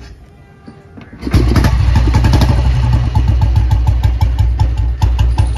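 Royal Enfield Bullet 350's single-cylinder four-stroke engine, freshly rebuilt with a new cylinder head, starts suddenly about a second in and runs with a steady, even beat.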